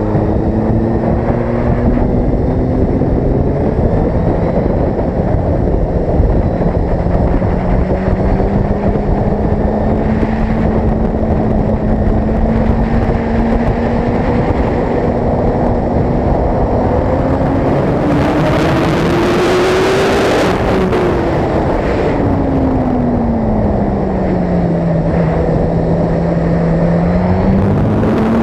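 Suzuki GSX-R sportbike's engine pulling along at road speed, mixed with steady wind rush on the bike-mounted camera. The engine note climbs gradually as the bike accelerates, peaks about two-thirds of the way through with a surge of wind noise, drops away, then rises again near the end.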